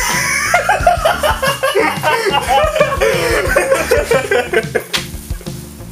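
Hearty laughter in quick repeated peals over background music, dying away about five seconds in.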